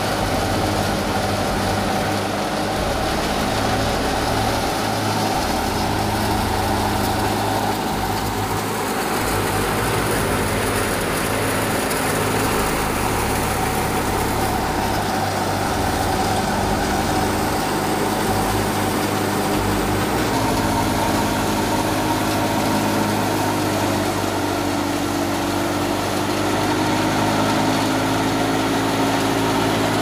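Stationary belt-driven wheat thresher and the engine driving it, running steadily under load while wheat sheaves are fed in. The steady mechanical note shifts slightly about two-thirds of the way through.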